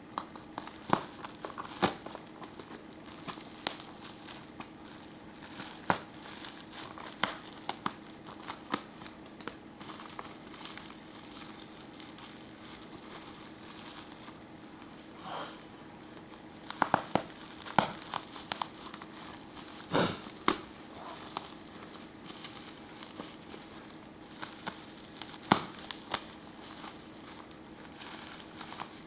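Plastic packaging crinkling as a laptop RAM module is unwrapped and handled, with irregular sharp clicks and short rustles, the loudest about 20 and 25 seconds in.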